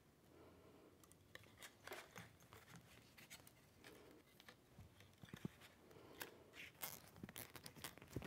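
Faint, irregular clicks and scrapes of a nylon zip tie being threaded through a crossover board and pulled tight around a copper air-core inductor.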